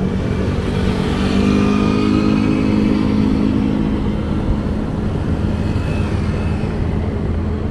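Motorcycle engine running while riding, with a steady rush of road noise; the engine note rises a little during the first few seconds as the bike pulls, then settles.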